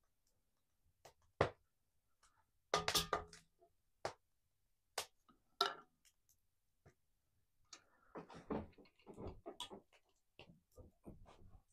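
Wooden spoon scraping and knocking inside a cast-iron Dutch oven while food is dished out: a handful of sharp knocks, with a quick cluster about three seconds in. Near the end comes a denser run of clunks and scrapes as the heavy pot is lifted off the wooden table.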